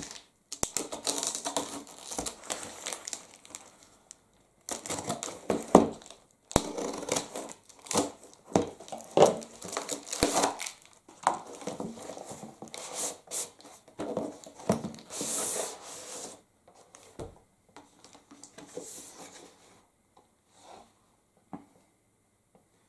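A cardboard shipping parcel in paper wrapping being cut open with a pocket knife, then torn and crumpled apart by hand: irregular rustling and tearing with sharp clicks and knocks. The sounds thin out near the end as the product box is lifted out.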